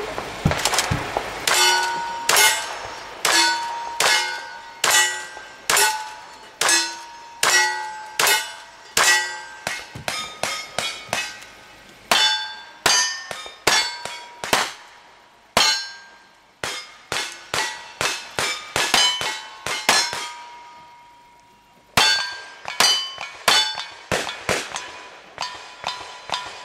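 A long string of gunshots fired in quick succession at steel targets. Each shot is followed by the clang of a struck steel plate ringing on. There is a pause of about two seconds near 20 s before the shooting resumes.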